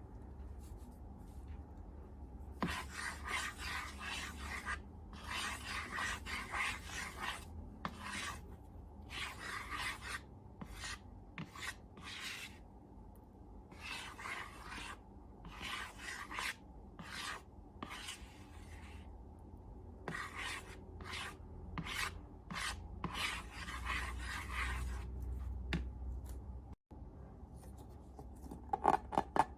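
Slime being worked, heard as repeated rubbing, rasping strokes of a second or two each with short pauses between. A faint low hum runs underneath.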